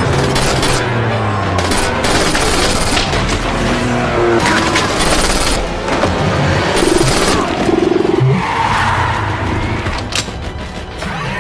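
Action-film soundtrack: music mixed with gunfire and engine sound effects.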